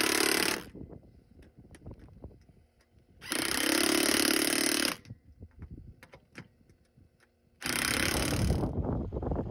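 DeWalt cordless impact driver running bolts tight along the seam of a corrugated steel stock tank. It sounds in three bursts of about one to one and a half seconds each, one already going at the start and stopping half a second in, with near quiet and small clicks between.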